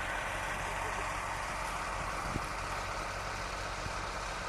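An engine idling steadily with a low hum, and one faint knock a little past halfway.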